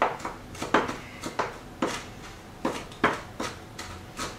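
Kitchen knife mincing pepper grass greens on a wooden cutting board: a run of sharp, uneven chops, roughly two a second.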